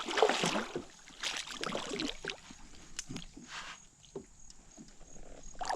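Water sloshing and splashing with scattered knocks, louder in the first half-second, as a hooked catfish is brought to the side of a small boat and landed.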